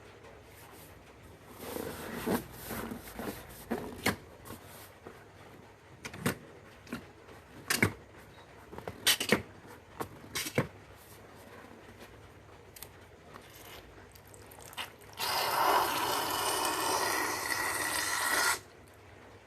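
Rubber balloon handled with a string of short sharp squeaks and crackles, then air rushing out of the balloon's neck for about three seconds, cutting off suddenly.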